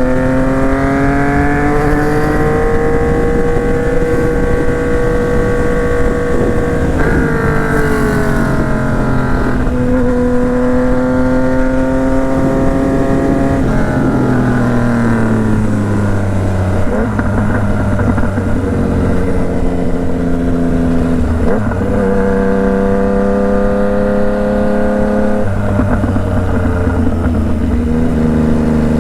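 Yamaha MT-09 three-cylinder engine under way, its pitch climbing under throttle and dropping sharply at several gear changes, about six shifts in all, with easing off in between.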